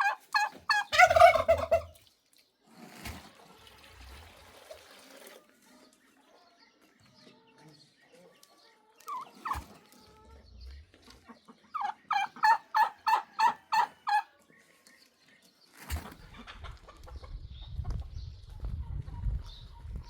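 Domestic fowl calling in two quick runs of repeated notes, about four a second, one at the start and one about twelve seconds in. A low rumbling noise comes in near the end.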